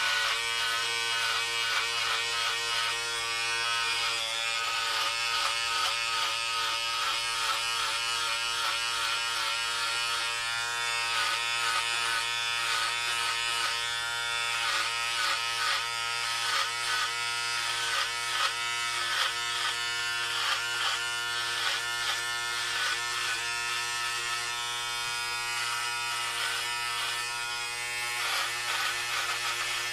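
Electric hair clippers buzzing steadily while cutting hair. The pitch dips briefly again and again as the blades take load.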